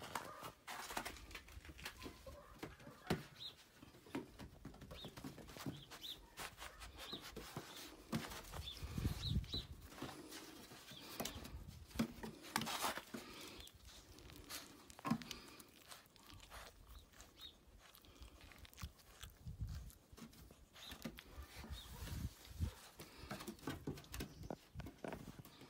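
A puppy's claws clicking and pattering on wooden deck boards as it moves about and mouths plush toys, with scattered taps and faint short high chirps.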